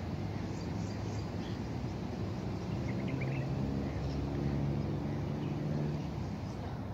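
Outdoor ambience dominated by a vehicle engine's low hum, swelling in the middle and easing near the end, with a few short bird chirps about three seconds in.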